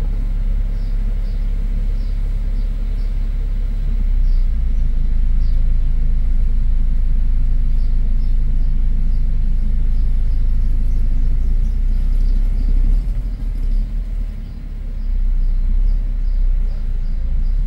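Steady low rumble of a car on a cobblestone street, waiting and then rolling forward. A row of faint, high, short chirps repeats about twice a second over it.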